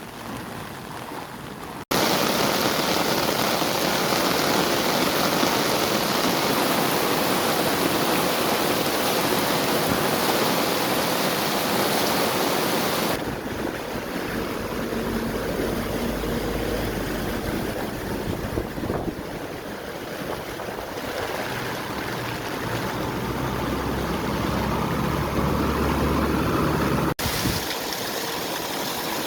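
Steady rushing noise of heavy rain and floodwater, broken by abrupt cuts about two seconds in and near the end. It is loudest at first, and a low hum joins in during the later part.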